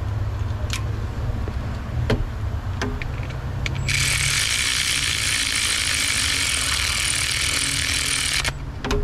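A few light clicks, then about four seconds in a cordless ratchet motor runs for about four and a half seconds, spinning a new spark plug down into the cylinder head of a Chevrolet 6.0 LQ4 V8. A steady low hum sits underneath.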